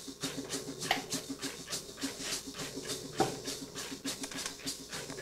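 A fast, even pulsing, about six pulses a second, with a knock about a second in and a sharper one a little after three seconds.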